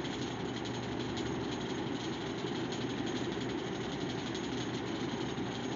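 Electric fan running steadily, a constant whirring noise with no change in pitch.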